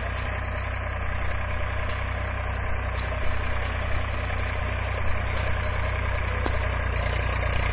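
Four-wheel-drive diesel tractor running steadily under load as it pulls a plough cutting a furrow through the field border, growing slightly louder as it approaches. A few faint knocks sound near the middle.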